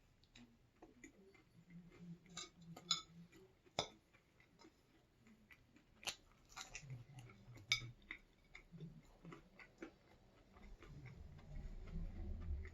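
A person chewing food, with scattered sharp clicks and small smacks, the loudest about three seconds in and near eight seconds. A low rumble rises over the last two seconds.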